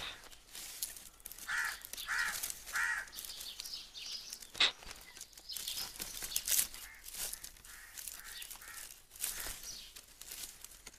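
A crow cawing: three harsh caws close together about a second and a half in, then fainter caws, over scattered clicks and crackles.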